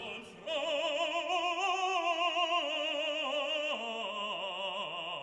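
Background music in a classical, operatic style: long held notes sung or played with strong vibrato, the melody stepping down in pitch about two thirds of the way through.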